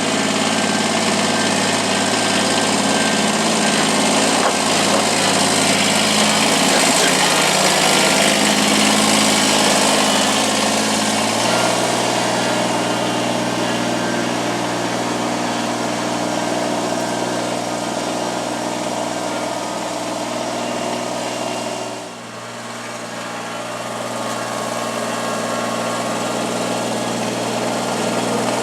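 Kubota BX compact tractor's three-cylinder diesel engine running steadily as it warms up. About eleven seconds in, the engine speed drops a step and it settles into a lower, steadier run. Later the sound briefly dips in loudness.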